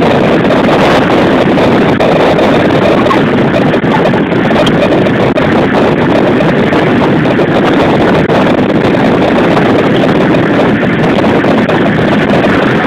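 Steady, loud rush of wind and road noise from a vehicle moving along a street, buffeting the phone's microphone.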